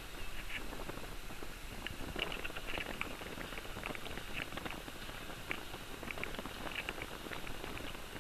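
Wind rushing steadily over the camera microphone while hanging high on a parasail, with scattered short crackles and clicks throughout.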